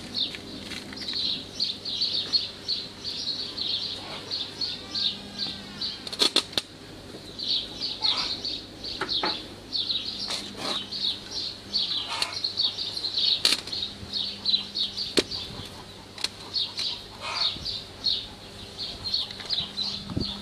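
Rag being rubbed and wiped over the steel mould cells and cores of a cinder-block machine, greasing them with diesel fuel before moulding. The swishing comes in strokes, with a few sharp clinks against the metal, over a constant high chirping and a steady low hum.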